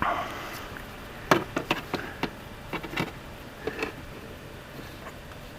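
A run of short, irregular clicks and taps, with a brief rustle at the start, as the red locking tab on a 42RLE solenoid pack wiring connector is worked at to release it.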